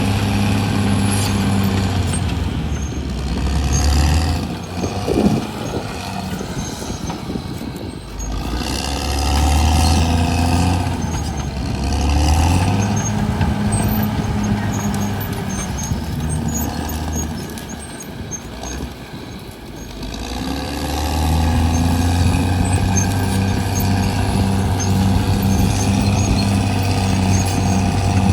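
Caterpillar D6R XL bulldozer's diesel engine working, its note easing off twice and then building back up under load, with a sharp knock about five seconds in.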